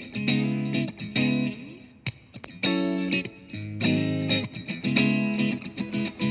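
Guitar strumming chords in short strokes separated by brief pauses: an instrumental bar of a ballad between sung lines.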